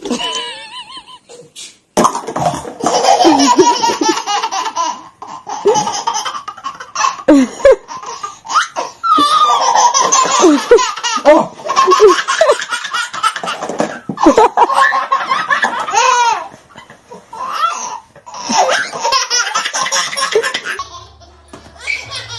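A person laughing hard in long, repeated bouts. The laughter starts about two seconds in and stops shortly before the end.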